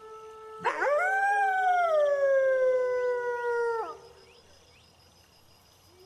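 Wolves howling. A faint, steady howl is joined about half a second in by a loud howl that swoops up and then slowly falls in pitch before breaking off near four seconds. Another howl begins at the very end, over crickets chirping in the background.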